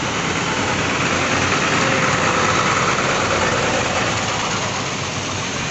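A bus's diesel engine running as the bus moves past, getting a little louder around the middle and then easing off.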